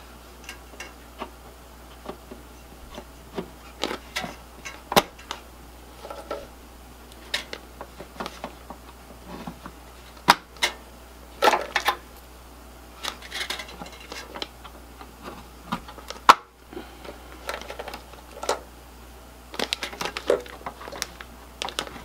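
Server memory modules being handled and pressed into a Dell PowerEdge T320's DIMM slots: scattered plastic clicks and snaps of the slot latches, with crinkling of anti-static bags between them. The sharpest clicks come about ten and sixteen seconds in.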